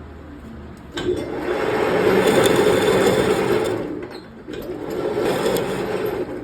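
A motor-driven machine tool running, starting abruptly about a second in, easing off briefly around four seconds, then running again.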